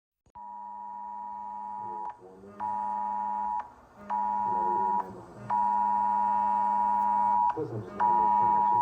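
Emergency Alert System–style two-tone attention signal: a steady dual-pitch alarm tone sounding in five bursts with short breaks between them, each burst louder than the last.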